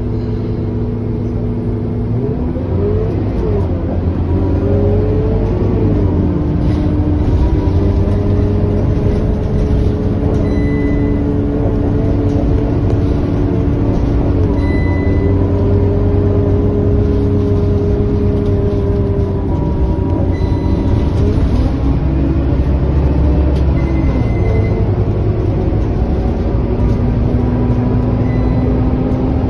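Scania K230UB bus heard from inside the passenger cabin while driving: the steady drone of its five-cylinder diesel engine and drivetrain over tyre and road noise. The engine pitch dips and climbs again a couple of times as the bus changes speed.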